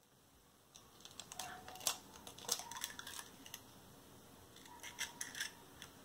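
Faint, scattered clicks, ticks and crackles of a raw eggshell being pried apart by hand over a small ceramic ramekin, thickest between about one and three and a half seconds in and again near five seconds.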